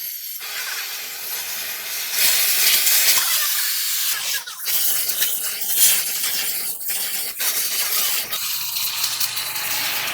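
Pressurised spray hissing hard as it is blasted onto the parts. It starts abruptly, has a few short breaks near the middle, and goes on spraying to the end.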